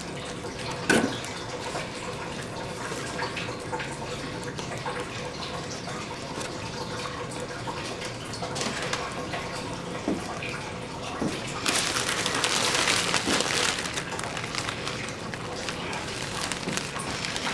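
Plastic and foil packaging rustling and crinkling as a bag of kale is handled and lifted out of an insulated box liner, with a louder stretch of crinkling about twelve seconds in.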